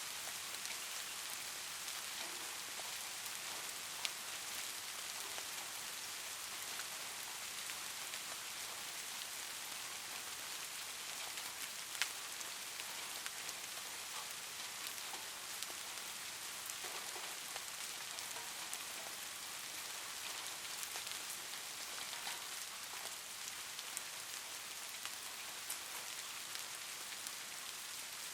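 Steady rain falling, an even hiss scattered with the ticks of single drops. Two sharper drips stand out, one about four seconds in and one about twelve seconds in.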